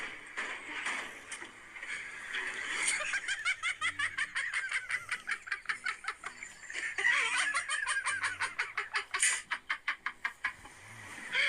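Two people laughing hard and breathlessly, wheezing laughter in rapid high-pitched pulses that go on for most of the stretch.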